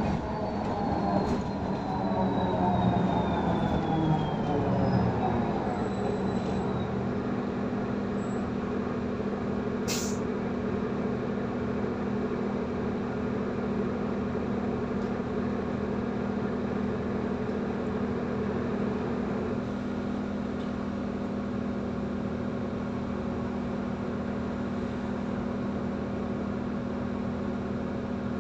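Inside a Solaris Urbino 18 III articulated diesel bus: the drivetrain whine falls in pitch over the first five seconds or so as the bus slows to a stop, then the engine idles with a steady hum while the bus stands. A brief sharp hiss comes about ten seconds in.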